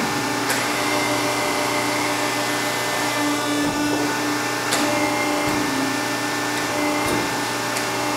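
Diacro 75-6 hydra-mechanical press brake running, its hydraulic power unit giving a steady motor hum, with a few sharp clicks from the machine.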